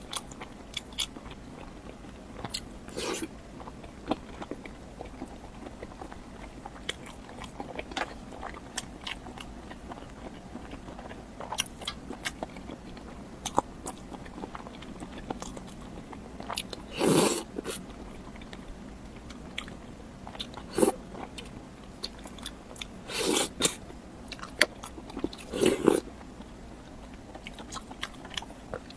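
Close-miked eating: chewing and biting with small wet mouth clicks throughout, and a few louder bites several seconds apart.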